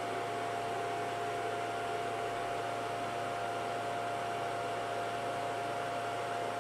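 Cooling fans of a ToolkitRC M8D battery charger setup running steadily under a heavy charging load of about 1000 W, a constant rush of air with a steady whine over it.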